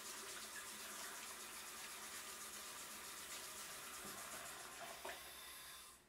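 Bathroom sink faucet running, a steady stream of water into the basin that cuts off shortly before the end.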